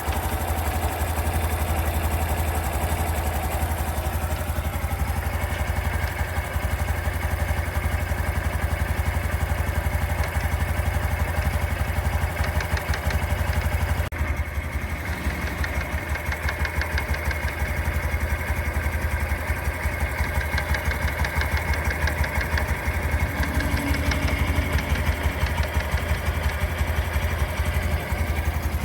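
Honda Super Cub C125's single-cylinder four-stroke engine idling steadily, with a fine, rapid ticking over the engine note. The owner is chasing a 'katakata' rattle at idle that he hears except straight after a ride.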